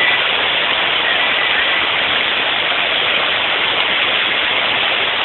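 Water rushing out through the open gates of a river barrage: a steady, even roar with no breaks.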